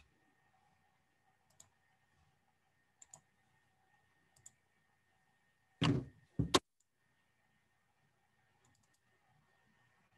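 Scattered faint clicks, then two louder thumps about half a second apart around six seconds in, over a faint steady electrical hum, picked up by a video-call microphone.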